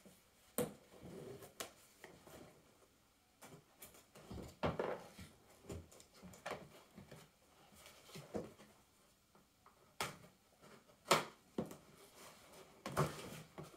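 A cardboard box being handled and opened: packing tape picked at and slit with a folding knife, with rustling and scraping and a handful of sharp clicks and taps at irregular intervals.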